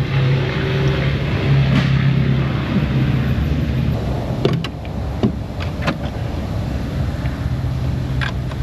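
Kia Soul's engine idling steadily, its hum easing off about halfway through, with several sharp clicks in the second half.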